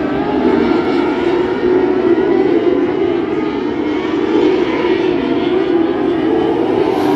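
Non-wing micro sprint race cars racing on a dirt oval. Several high-revving engines overlap, their pitch rising and falling as they go around the track.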